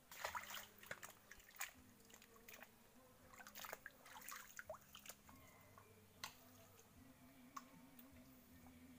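Faint wet squelching with scattered irregular clicks as hands dig through mangrove mud and shallow water, feeling for clams.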